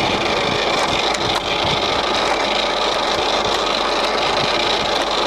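Colchester Triumph 2000 centre lathe running steadily at low spindle speed, its gears and feed drive whirring with a faint high whine. A few light clicks sound over it.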